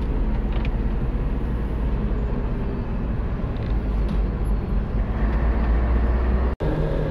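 Expedition vehicle driving along a narrow track: a steady, heavy low rumble of engine and running gear. The sound breaks off for an instant near the end.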